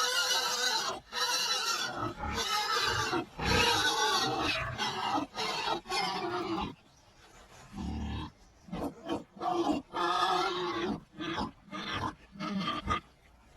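Pigs squealing loudly in long, shrill calls, then shorter squeals and low grunts in the second half.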